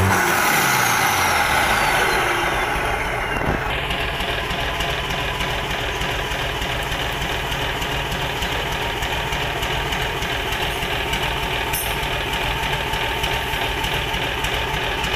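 Rebuilt Mitsubishi Fuso 6D22 inline-six diesel engine running on a test stand after its overhaul. A high whine falls in pitch over the first few seconds, then the engine settles into a steady idle.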